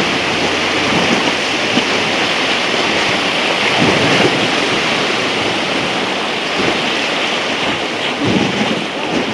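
Rushing river water around a raft, a loud steady hiss with brief swells about four and eight seconds in.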